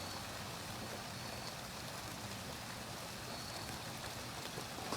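Steady rain falling, an even hiss of rain without any change or break.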